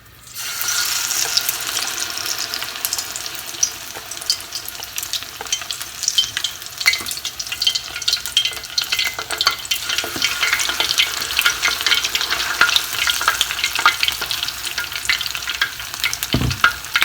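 Tempura-battered shrimp deep frying in vegetable oil at about 180 °C: a dense crackling sizzle that starts just as they go into the oil. A short low bump near the end.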